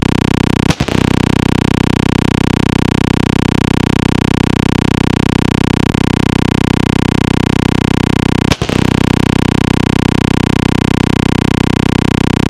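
A loud, steady electronic buzz at one pitch with many overtones, broken twice by a brief dropout: once about a second in and again about eight seconds later.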